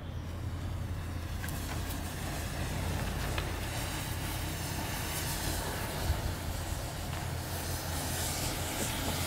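Bundled matchsticks catching fire in a chain, thousands of match heads flaring: a steady hiss that starts at once and builds as the fire spreads, with a few sharp crackles in the first few seconds.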